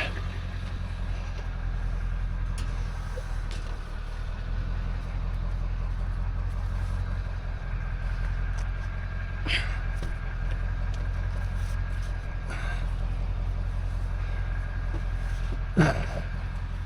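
Vehicle engine running with a steady low drone, with a couple of brief sharp sounds about halfway through and near the end.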